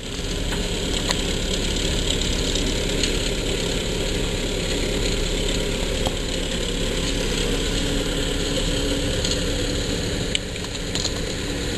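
Towing vehicle's engine running steadily while it pulls a kayak trailer over wet sand, with a few short knocks along the way.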